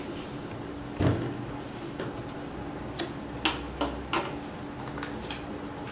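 Small cardboard word cards being handled and set down on a clipboard: a soft thump about a second in, then several sharp, irregular ticks and taps between about three and five seconds.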